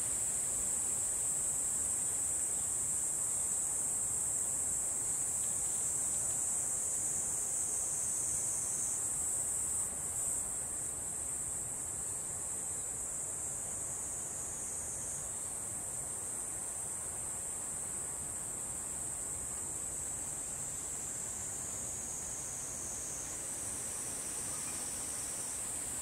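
A steady, high-pitched insect chorus, its pitch shifting slightly a few times, over a faint hiss.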